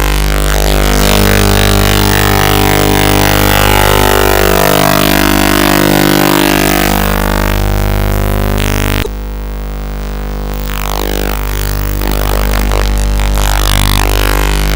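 Loud, heavily distorted electronic music over a steady low drone. About nine seconds in, the treble suddenly cuts out for a second and a half, then returns.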